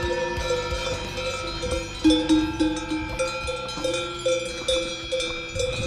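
Cowbells on a herd of grazing cattle, several bells at different pitches clanking together, one of them struck about twice a second.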